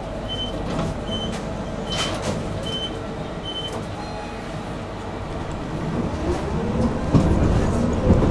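Inside a tram, a short high beep repeats about once every 0.8 seconds, five times, a door warning signal. From about six seconds in the tram moves off, its electric traction motors whining upward in pitch as the rumble of the running gear grows louder.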